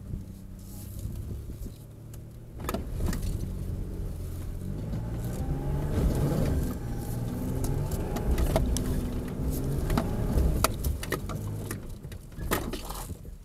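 Nissan Frontier 4x4 pickup's engine pulling under load up a sandy hill, revs rising through the middle of the climb, with several sharp knocks and rattles from the truck's body and suspension, heard from inside the cab.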